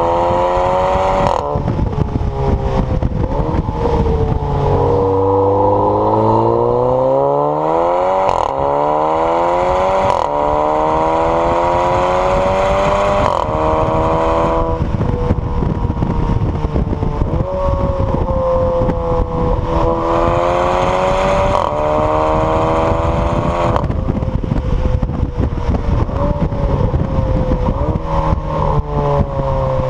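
Seat Leon Cupra's turbocharged 2.0 TSI four-cylinder through a Milltek Sport non-resonated cat-back exhaust, heard at the tailpipe while driving. The engine note rises in pitch under acceleration and drops sharply at several gear changes. It then settles and rises again, over a hiss of spray from the wet road.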